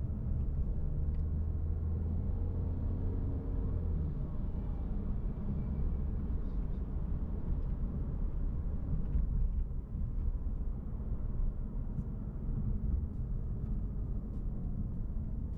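Interior sound of a 2020 Mercedes-Benz C200 Coupé being driven: the low hum of its 1.5-litre turbocharged four-cylinder petrol engine under road and tyre rumble, heard from inside the cabin. The car picks up speed and then eases off again.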